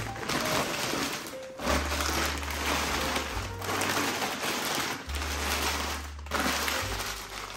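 Thin plastic bags crinkling and rustling in stretches as they are handled, twisted and pulled open, over background music with a low bass line.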